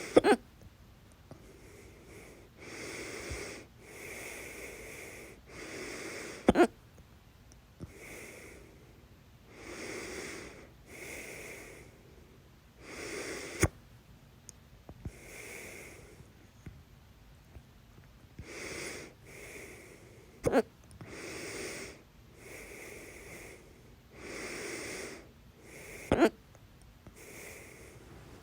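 A person's loud hiccups: five sharp hics about every six to seven seconds, with audible breathing in and out between them.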